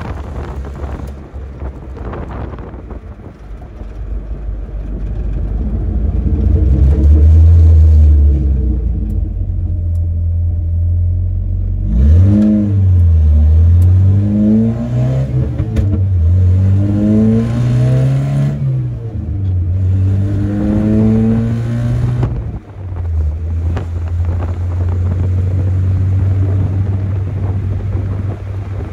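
Chevrolet S10 pickup's stock four-cylinder engine under hard acceleration through a manual gearbox. A steady rumble swells, then the engine pitch climbs and drops several times in quick succession as it is run up and shifted through the gears. It settles into a steady drone at cruising speed for the last few seconds.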